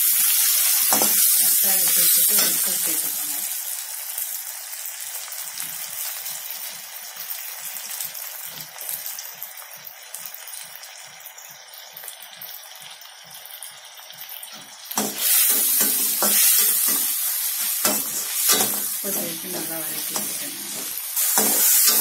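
Onions and tomatoes frying in hot oil in a steel kadai, sizzling while a perforated steel skimmer stirs and scrapes them. The sizzle is loud at first, dies down for a long stretch with only light scraping, and comes back louder with brisk stirring strokes about fifteen seconds in.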